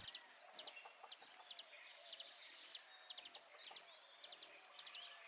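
An insect trilling at a high, steady pitch in short repeated pulses, with faint scattered bird chirps.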